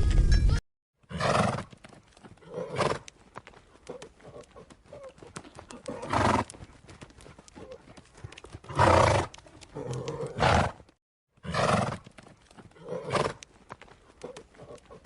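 A horse making short, loud vocal bursts every one to three seconds, with faint hoof clicks in between.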